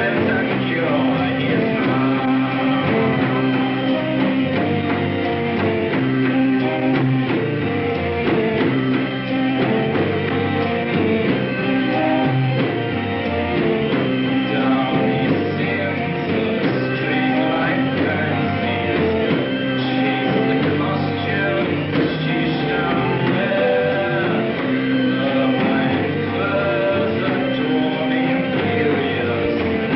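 Rock music with guitar and singing.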